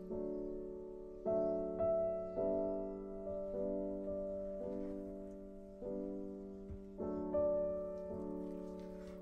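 Slow, soft solo piano background music: single notes and chords struck every half second to a second, each ringing on and fading.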